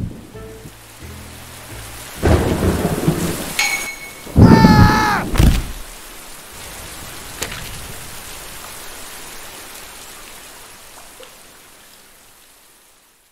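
Heavy rainstorm: steady rain, with two loud thunder rumbles about two and four and a half seconds in, the rain fading out near the end.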